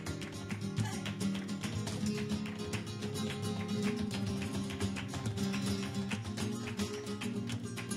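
Live flamenco music led by guitar, played with fast, closely spaced strokes.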